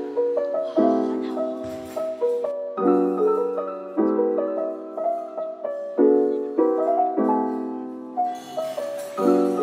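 Background piano music: slow chords and melody notes, each struck and then fading, a new chord every second or two.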